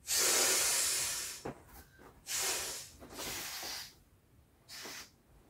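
Air hissing from the Intex Wave Rider GP500 inflatable jet ski in several bursts: one long hiss at the start, then three shorter ones with short gaps between.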